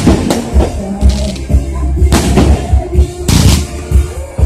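Music with a heavy beat, cut by several sharp bangs of aerial fireworks bursting.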